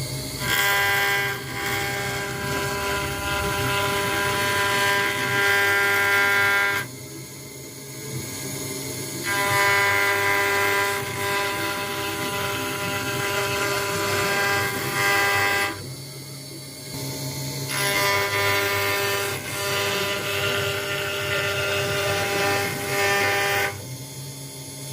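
CNC router cutting acrylic sheet: a steady, high-pitched machine whine comes in three stretches of about six seconds, with quieter running in the short breaks between them.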